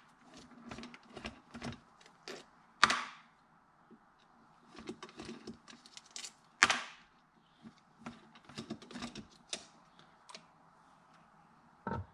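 Screwdriver working the top-cover screws of a Keihin CDK II carburetor: a run of small metal clicks and scrapes. Two louder knocks come about three and seven seconds in.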